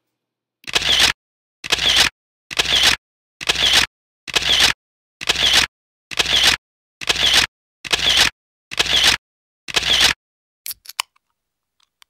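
Camera shutter sound effect repeated ten times, about once a second, each a short snap, followed by two faint clicks near the end.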